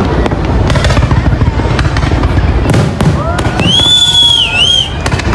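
Fireworks display: a dense run of bangs and crackles over a continuous low rumble. About three seconds in, a loud high whistle rises, holds, then wavers near the end.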